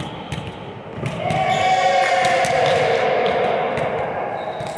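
Volleyballs being hit and bouncing on a gym floor, a few sharp knocks. About a second in, a person's long drawn-out call sets in and slowly falls in pitch over a couple of seconds; it is the loudest sound here.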